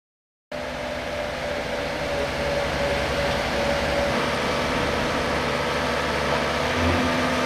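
Diesel site machinery running steadily, a constant engine drone with a steady hum, starting abruptly about half a second in.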